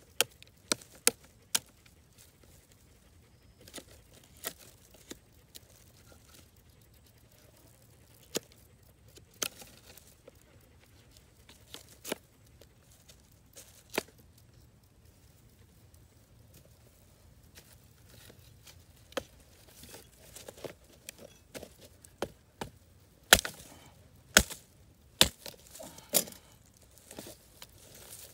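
A Condor Bushlore knife scraping bark and shaving wood off a stick for kindling: irregular sharp scrapes and cracks, sparse at first, then coming faster and louder in the last several seconds.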